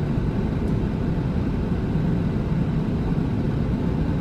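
Steady low rumble of Airbus A380 cabin noise heard at a window seat over the wing, with no change in level.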